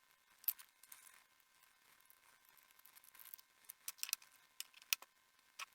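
Faint clicks and scrapes of a small screwdriver and metal parts being handled during the teardown of a metal HO scale model locomotive: a sharp tick about half a second in, a brief scrape, then a run of clicks near the end.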